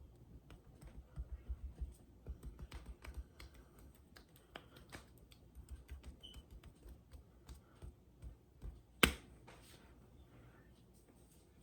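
Close-miked neck massage: a run of quick, soft taps, rubs and small clicks of hands working on skin, with one sharp crack about nine seconds in.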